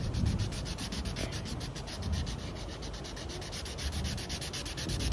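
Blue felt-tip marker rubbing on a colouring-book page in quick, even back-and-forth strokes, filling in a large area close to the microphone.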